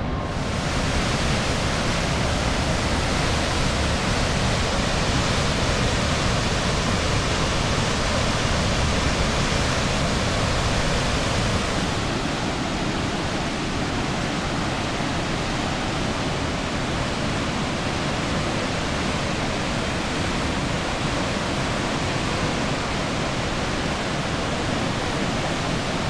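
White water of the Athabasca River rushing over Athabasca Falls and through the rock gorge: a steady, even rushing noise. About twelve seconds in it becomes slightly quieter and less hissy.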